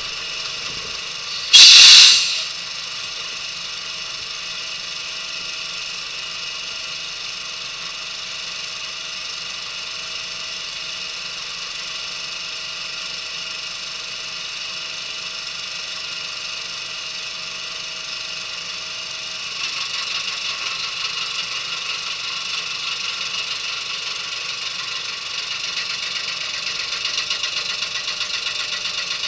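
An engine running steadily, with a loud hiss lasting under a second about two seconds in. About 19 seconds in the engine sound gets louder and stays up.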